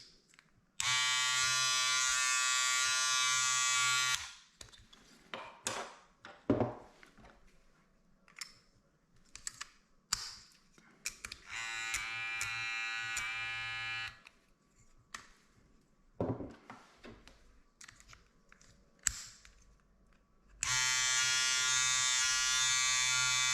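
Electric hair clippers with a clip-on guard switched on and run steadily for a few seconds, three times, the middle run quieter, with short clicks and taps of guards being handled and fitted in between. The clippers are run to check whether the guard rattles on the blade.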